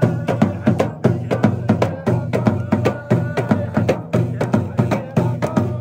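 Moroccan street musicians playing hand drums in a fast, even rhythm of about five strokes a second, with a man's voice chanting over the drumming.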